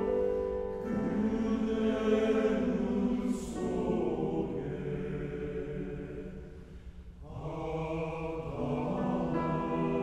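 Men's choir singing in harmony, holding long chords; the sound thins to a brief pause between phrases about seven seconds in, then the next phrase begins.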